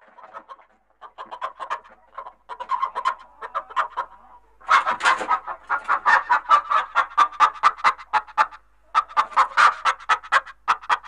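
Chicken clucking in rapid runs of short clucks, several bouts separated by brief pauses, getting louder about five seconds in.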